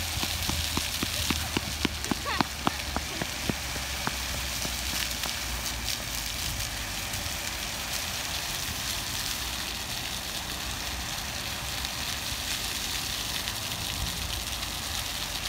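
Water fountain splashing steadily, a continuous hiss of falling spray, with several sharp taps in the first few seconds.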